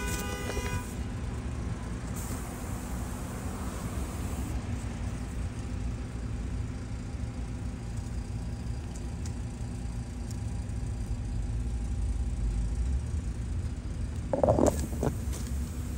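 Steady low rumble of road traffic and running vehicle engines. A short pitched tone with overtones sounds in the first second, and a brief louder sound comes about a second and a half before the end.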